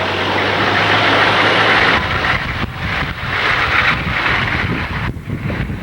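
Snowstorm wind gusting against the microphone over the steady rush of passing traffic, the gusts growing choppier about two seconds in.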